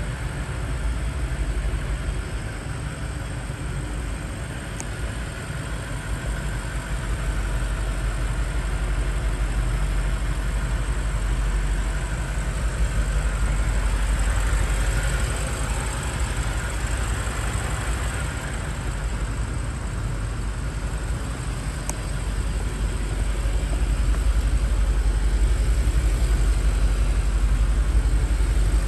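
Twin-turbocharged 4.4-litre V8 of a 2021 BMW X5M Competition idling steadily, a deep low rumble.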